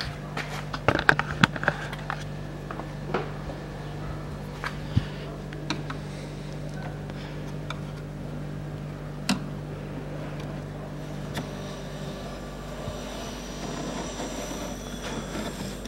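Plastic clicks and knocks as a car's cabin air filter is pried with a screwdriver and worked out of its housing behind the glovebox, thickest in the first two seconds, then a few single knocks, over a steady low hum.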